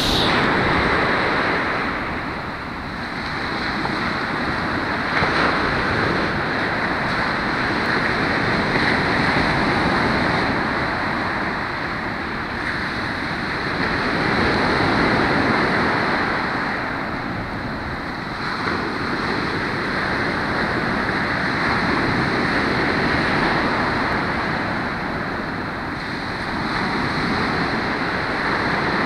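Ocean surf breaking and washing up a sandy beach: a continuous rushing that swells and eases every several seconds as the waves come in.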